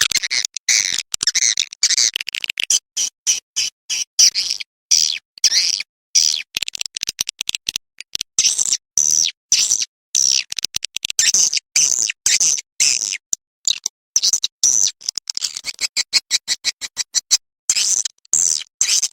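Recorded swiftlet calls used as a lure track for swiftlet houses: dense, high-pitched twittering chirps in rapid runs broken by short gaps.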